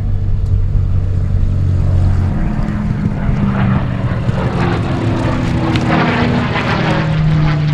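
Curtiss P-40E Kittyhawk's Allison V-1710 liquid-cooled V-12 piston engine running as the fighter rolls along the runway. Its note changes about two and a half seconds in, to a higher, shifting engine tone.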